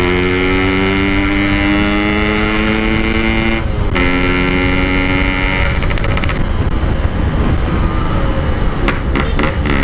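Yamaha RX-King two-stroke single-cylinder motorcycle engine under way, its pitch climbing steadily as it accelerates. There is a short break and drop in pitch almost four seconds in, as at a gear change. About six seconds in the engine note fades under rough wind and road noise, and it comes back near the end.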